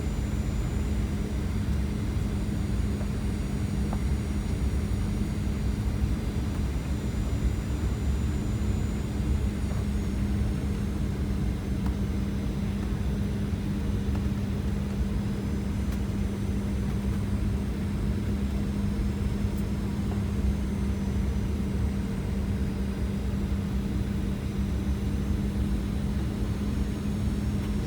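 Airliner cabin noise heard from a passenger seat: a steady drone of engines and airflow with a constant low hum and deep rumble. A faint high whine fades after about ten seconds.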